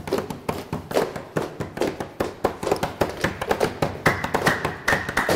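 Several people clapping their hands in a quick, steady rhythm, as in a Gulf-style dance clap. A steady high tone joins in about four seconds in.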